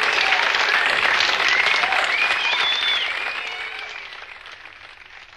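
Crowd applauding with some cheering after a speech. It is loud at first, then dies away over the last two seconds.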